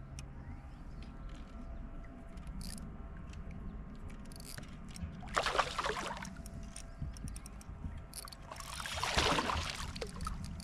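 Water splashing twice, about five seconds in and again near the end, as a hooked fish thrashes at the surface during the fight, over a steady low rumble.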